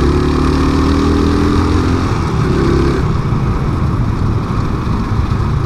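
Suzuki Smash 110 motorcycle's small single-cylinder four-stroke engine running under way, over wind and road noise. The engine note fades about three seconds in, leaving mostly wind and road noise.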